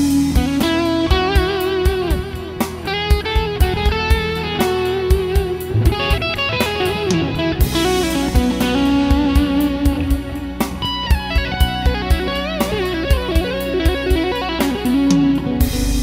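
Electric guitar played through an Ernie Ball Overdrive pedal, a foot-treadle overdrive, playing a lead line of held notes with vibrato and bends over a sustained low note.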